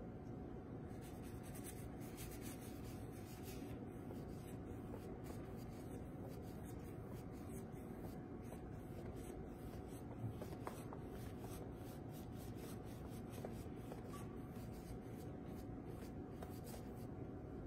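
Faint rubbing strokes of a large paintbrush working acrylic paint across a canvas as the blue is blended in, over a steady background hum.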